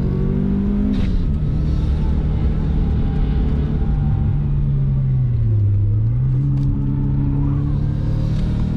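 Subaru Impreza's flat-four engine under hard track driving, heard from inside the cabin. Its pitch drops with an upshift about a second in, falls away as the car brakes for a corner, and jumps back up with a downshift about six and a half seconds in.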